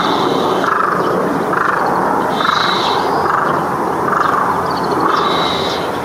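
Eurasian tree sparrows chirping in short clusters of high notes, over a lower call that repeats about once a second and a steady background noise.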